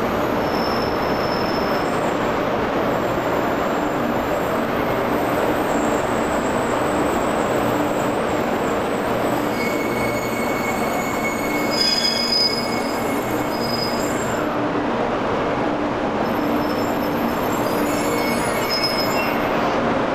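A JR 300 series Shinkansen train rolls slowly along a station platform to a stop, with a steady rush of running noise. High squeals come and go as it brakes, loudest about twelve seconds in.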